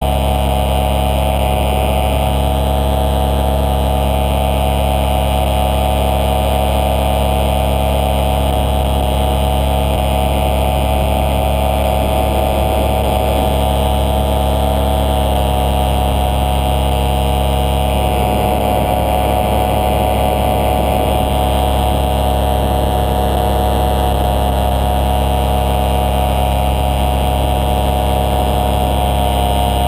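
Small aircraft engine running steadily in flight: a constant drone that holds one pitch throughout.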